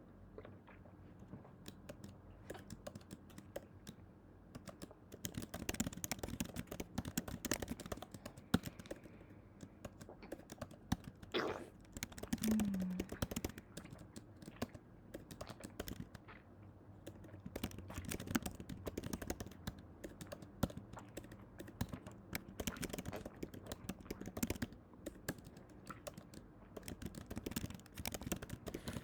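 Dense, irregular clicking and tapping, with a brief rising swish about eleven seconds in.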